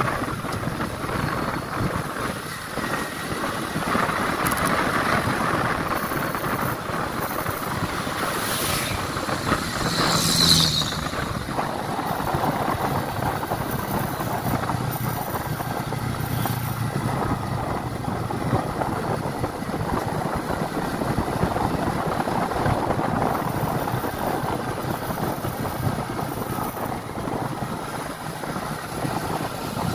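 Motorcycle running steadily at road speed, its engine under a constant rush of wind and road noise on the handlebar-mounted microphone, with a brief louder swell about ten seconds in.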